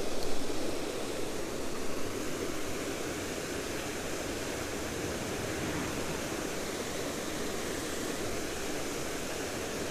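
Steady rush of water from a spillway, with a brief louder bump right at the start.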